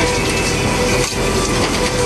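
Fishing boat's engine and deck machinery running loudly: a steady drone with a dense mechanical clatter and rattling over it.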